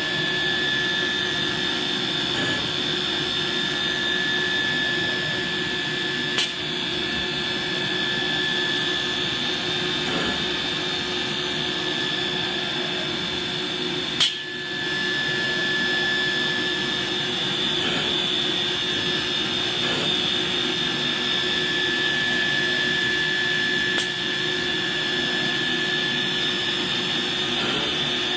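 Twin-spindle CNC nesting router milling a board: a steady high spindle whine over the cutting noise, broken three times by a sharp click.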